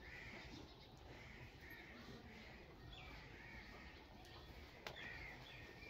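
Faint, repeated bird calls, short arched notes coming every half second to a second, over a quiet background with a couple of soft clicks.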